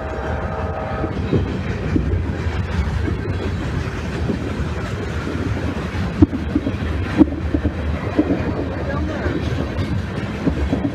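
Freight train rolling past: a steady low rumble of wheels on rail with clickety-clack, and two sharp bangs about six and seven seconds in. The tail of a train horn's chord dies away about a second in.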